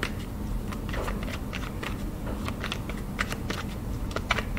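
A tarot deck shuffled by hand: a quick, irregular run of soft card slaps and snaps as packets of cards are moved against each other.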